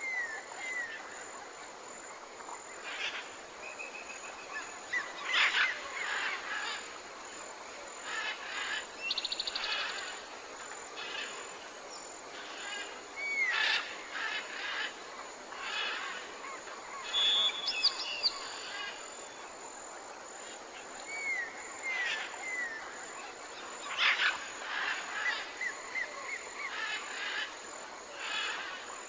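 Tropical jungle ambience: assorted birds calling, with short chirps, curved whistles and rapid trills every few seconds over a steady high-pitched background drone.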